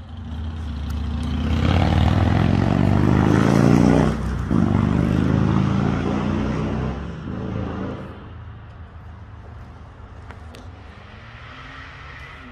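A motor vehicle passing on a nearby road: its engine and tyre noise grows louder over the first couple of seconds, stays loud for several seconds, then fades away about eight seconds in, leaving a low steady background.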